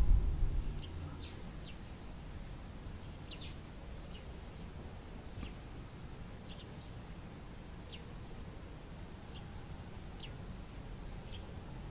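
Bull-headed shrike giving short, high, downward-sweeping call notes, faint and spaced irregularly, about a dozen in all. A brief low rumble sounds in the first second.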